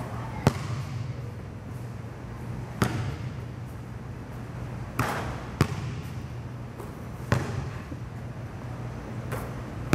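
Basketballs bouncing on a gym floor: about six single thumps, irregularly spaced one to two seconds apart, over a steady low hum.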